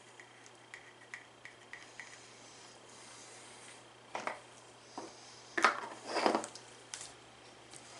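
Small glass paint jars clinking and a wooden stir stick tapping and scraping against glass while paint is mixed. There are light taps at first, then several louder clinks and clatters in the second half.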